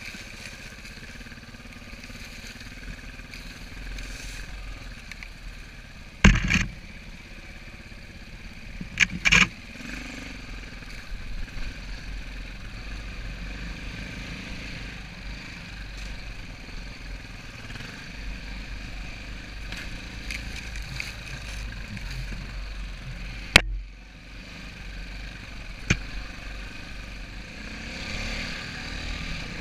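Dirt bike engine running steadily while the bike is ridden along a rough singletrack trail. It is broken by a few loud, sharp knocks and clatters: one about six seconds in, a pair about three seconds later, and another near the end.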